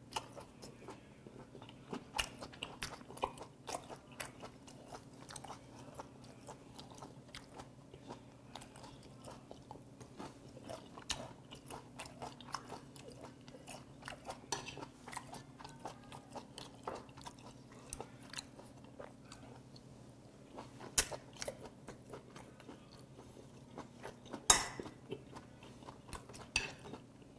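Close-miked chewing of sea hare: small wet clicks and squelches from a firm, sponge-like bite that doesn't crunch much, over a faint steady low hum. A louder sharp click comes near the end.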